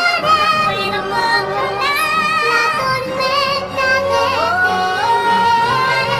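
Female voices singing with wavering vibrato over orchestral accompaniment, in a musical-theatre duet.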